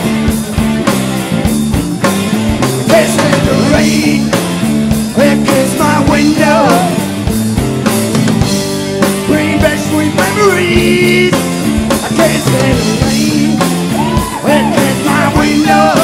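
A rock band playing live: drum kit, bass and electric guitars in a steady repeating groove, with a lead line bending in pitch over the top.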